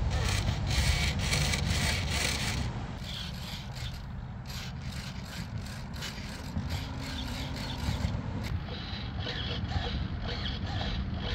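Low wind rumble on the microphone, with intermittent rustling and scraping from handling.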